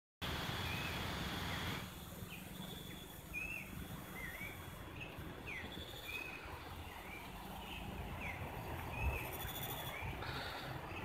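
A bird calls repeatedly with short whistled chirps, some rising and some falling, over a steady outdoor hiss that drops a little after the first two seconds.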